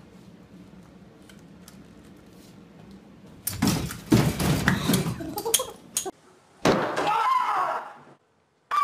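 A crash and clatter: a run of sharp knocks over about two seconds as a person stumbles into classroom furniture. After a short pause, a wavering cry follows near the end.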